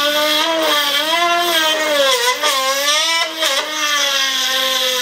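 Handheld Dremel rotary tool running with its bit cutting into a wooden control surface to remove a glued-in Robart hinge. The motor's whine wavers up and down in pitch as the bit bites into the wood and eases off.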